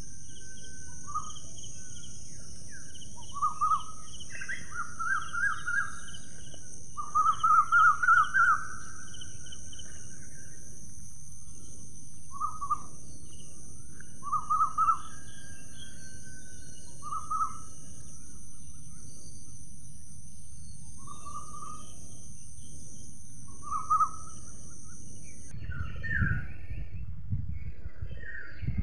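Birds chirping in short repeated phrases, loudest about seven to eight seconds in, over a steady high-pitched insect drone that stops suddenly a few seconds before the end. A low wind-like rumble runs underneath, and there are handling bumps on the microphone near the end.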